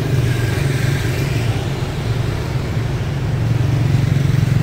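Street traffic: motorbike and car engines running past in a steady low drone.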